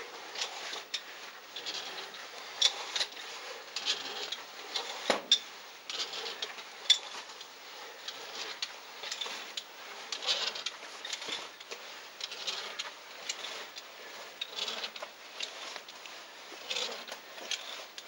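Caver climbing a rope up a narrow stone well shaft: irregular metallic clicks and clinks of the rope-climbing gear, with rubbing and scraping of suit and rope.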